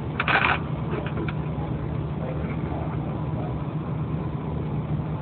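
Steady low hum, with a short noisy burst just after the start.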